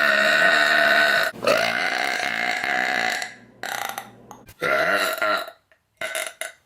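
A woman burping loudly several times in a row: two long, drawn-out burps back to back over the first three seconds, then shorter, weaker ones.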